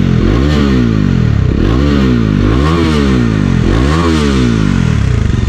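Bajaj Dominar 400's single-cylinder engine, heard through its stock exhaust, revved about four times at standstill. The pitch rises and falls with each blip of the throttle.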